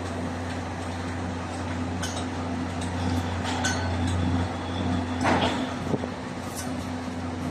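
Steady low engine drone at a building site, with scattered metallic clinks and knocks; the loudest knock comes about five seconds in.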